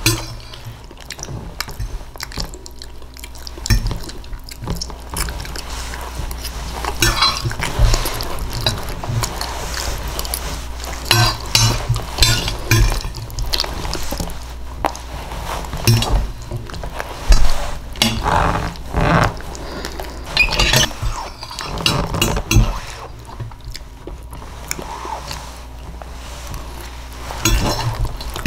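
Someone eating quiche Lorraine: cutlery clinking against a dish at irregular intervals, between chewing and lip-smacking sounds.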